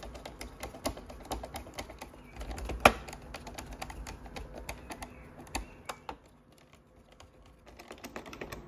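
Phillips screwdriver driving small screws back into a robot vacuum's plastic housing: a run of small irregular clicks and ticks, with one louder click about three seconds in.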